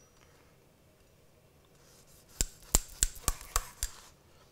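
Kitchen knife cutting a bagel into small pieces on a wooden cutting board: about six sharp clicks of the blade cracking through the crust and striking the board, roughly three a second, starting about halfway through.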